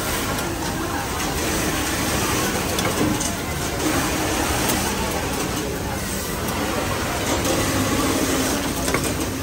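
Automatic care-label picking and welding machine at work, with a few faint light clicks from its moving heads over a steady din of surrounding machinery and background voices.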